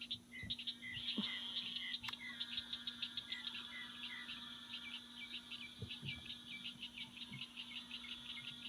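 Outdoor chorus of calling animals: rapid, rhythmic high chirping that runs throughout, joined for the first few seconds by a lower note repeating about twice a second, over a steady low hum. A single sharp click about two seconds in.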